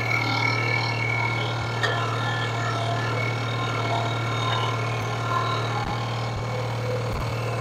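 Small loader tractor's engine running at a steady speed, a constant low hum.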